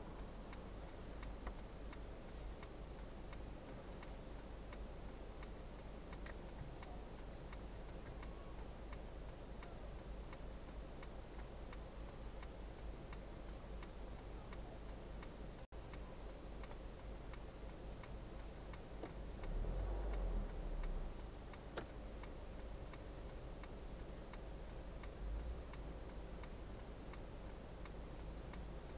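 A car's turn-signal indicator ticking steadily inside the stationary car's cabin, over a low steady hum, with a brief louder low rumble about twenty seconds in.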